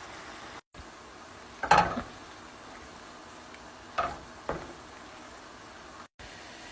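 Stovetop cooking: food frying in a pan with a steady sizzle, as a utensil stirs and clanks against the pan three times, loudest the first time.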